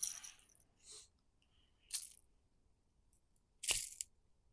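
Three brief, light metallic rattles about two seconds apart, like a lure's treble hooks jingling as the caught bass is handled.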